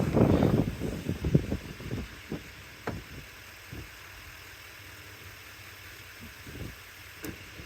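Wind buffeting the microphone, dying down after about two seconds, then a few scattered short knocks and clicks.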